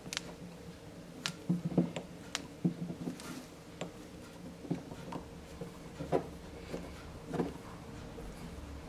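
Small metal parts being handled: a few sharp clicks and duller short knocks as fingers fit tiny hex set screws into the hub of a steel gear on its shaft.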